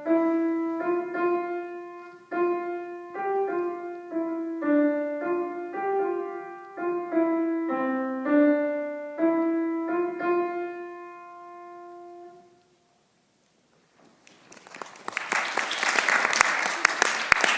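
Piano playing a simple melody in separate, evenly paced notes, ending on a held note that fades out about twelve seconds in. After a short silence, applause starts near the end.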